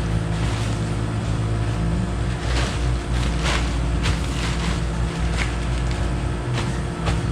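A tarp rustling in repeated short strokes as it is pulled over an ice cream freezer case, over the steady hum of the case's running refrigeration unit.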